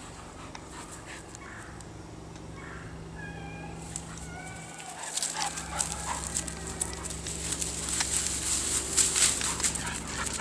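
Dogs play-wrestling, with faint short whimpers and yips in the first few seconds. From about halfway comes a louder run of rustling and crackling as they chase across the grass.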